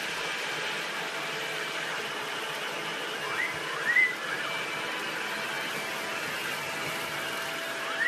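Cordless stick vacuum cleaner running steadily with a faint whine. A parrot riding on its floor head gives a few short rising chirps about three and a half to four seconds in and again near the end.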